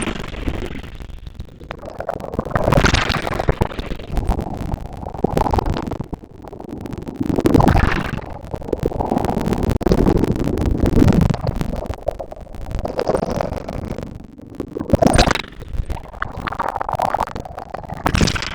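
Ocean waves breaking and washing up a beach, rising and falling in surges every few seconds, with a low rumble from wind on the microphone.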